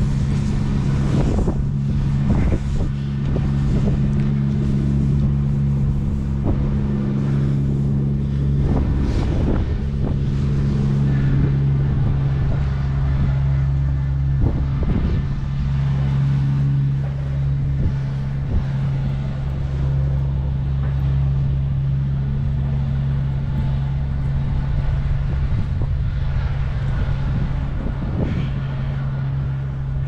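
Steady low hum of a car driving slowly along snowy streets, with tyre and road noise and a few irregular knocks.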